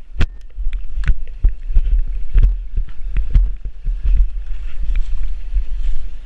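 Heavy wind buffeting on a helmet camera's microphone over a drift trike running downhill, with many irregular knocks and rattles as the trike slides off the road into the leaf litter and goes over.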